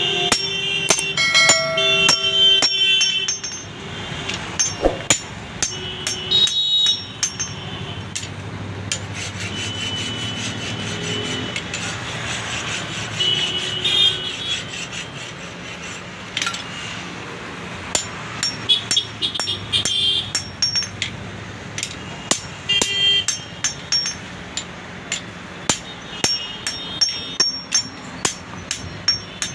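Blacksmith's hand hammer striking a steel dao (chopper-knife) blade on an anvil while reshaping it: sharp metallic blows that ring after each strike. They come in runs of quick blows, sparser through the middle.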